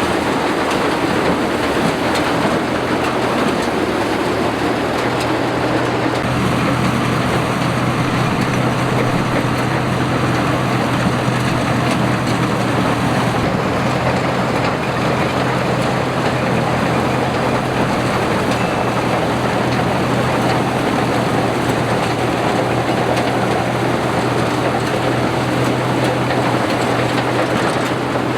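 Combine harvester running steadily in a rice paddy: a constant engine hum under the dense rattling noise of the cutting and threshing machinery. The hum grows stronger about six seconds in.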